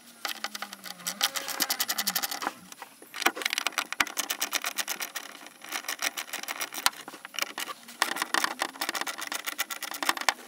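Hand screwdriver clicking rapidly as it turns out the screws holding a car subwoofer to its mounting plate, in several runs with brief pauses between.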